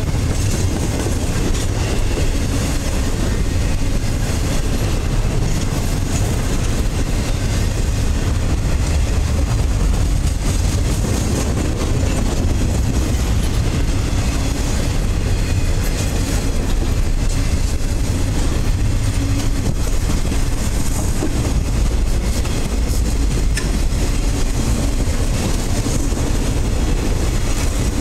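Freight train of container-laden flatcars passing close by at speed: a steady rumble and rattle of steel wheels on the rails.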